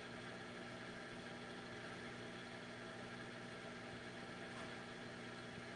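Faint steady background hum with hiss: room tone, with no distinct event.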